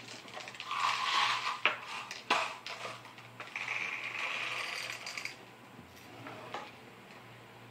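Hand-loading brass shotgun shells at a table: several sharp clicks of a brass shell and a plastic cup being handled, then about two seconds of rubbing or scraping.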